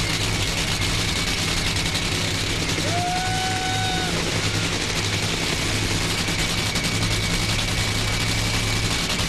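Drag racing engine running loud with a rapid crackling exhaust that echoes back off the valley. A short whistle-like tone sounds briefly about three seconds in.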